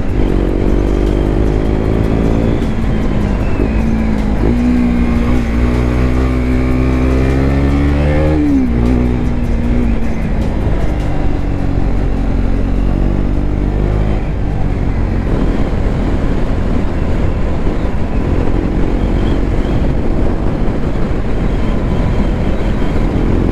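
Motorcycle engine pulling under way, its pitch climbing for several seconds and then dropping sharply at a gear change about eight seconds in. After that the engine tone fades under a steady rush of wind on the microphone.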